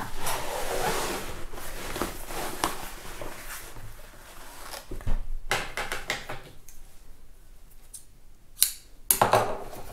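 Heavy canvas fabric rustling and dragging across the sewing table as it is handled, followed by a few sharp snips of scissors near the end, cutting the thread at the sewing machine.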